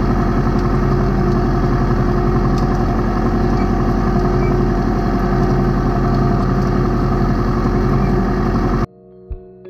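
New Holland Boomer 50 compact diesel tractor running steadily while pulling a two-row corn planter through the soil, with the planter rattling along. The machine sound cuts off suddenly near the end, giving way to soft mallet-percussion music.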